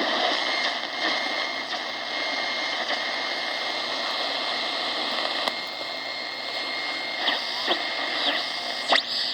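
Realistic DX-350 portable shortwave radio hissing with static and a faint steady whistle, with no clear station. Near the end a whistle slides down in pitch as the tuning moves onto a signal.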